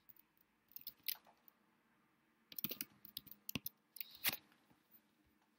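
Faint computer keyboard keystrokes: a few scattered taps about a second in, then a quicker run of key presses around the middle and a couple more near the end.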